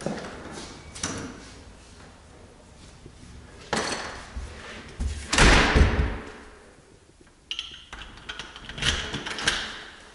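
A house's front door being pushed shut, with its loudest heavy thud just past halfway. Shorter knocks and handling noises come before and after it.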